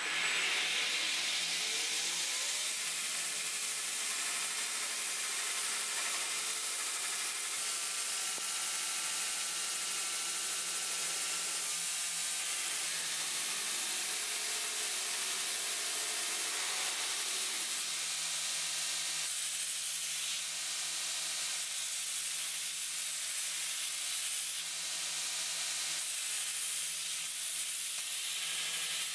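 Belt grinder running with a steel hammer head held against the abrasive belt, grinding it to its final shape: a steady hiss with a faint motor whine underneath.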